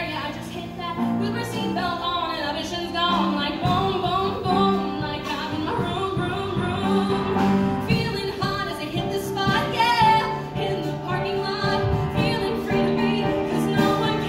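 A woman singing a song into a microphone, accompanied on an upright piano.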